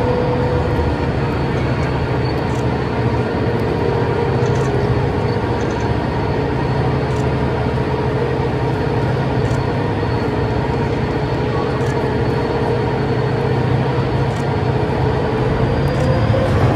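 A 35-ton overhead crane's travel drive whines steadily over a low rumble as it carries a suspended railcar. The whine dips slightly in pitch a few seconds in and rises briefly near the end.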